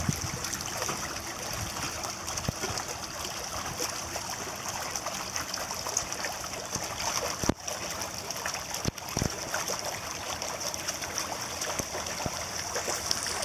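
Steady splashing and churning of pool water as two Labrador retrievers swim through it, paddling, with a few short knocks.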